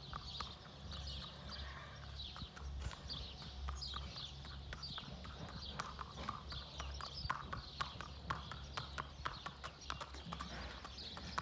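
A Thoroughbred's hooves clip-clopping on asphalt at a walk: a steady rhythm of sharp hoofbeats as it is led.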